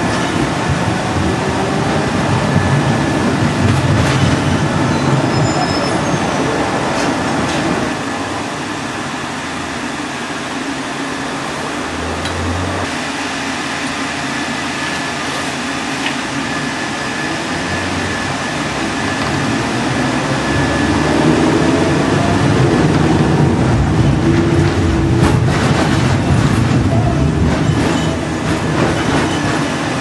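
71-630 tram running on its rails, heard from the driver's cab: a steady rumble of wheels and running gear, with the driver's controller first in power and then in braking. It drops in level about a quarter of the way through and gets louder again about two-thirds through.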